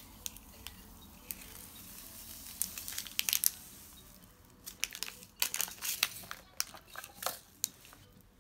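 Small plastic sachet crinkling and rustling as hands open it and shake green powder out of it. Sharp crinkles come in a cluster about three seconds in and again from about five seconds on.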